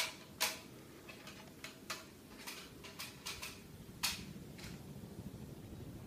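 Fanimation Benito ceiling fan running on high speed: a faint, steady low whoosh of air and motor hum. Over it, scattered light clicks and clinks sound during the first four seconds or so.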